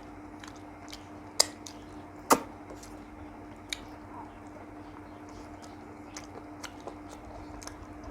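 Close-up eating sounds: soft, wet chewing with two sharp clicks a little under a second apart near the start, a smaller click a moment later and light ticks scattered after.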